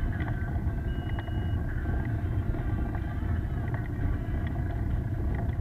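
Steady low rumble of wind and road noise while riding along an asphalt road, with faint steady tones and a few light clicks.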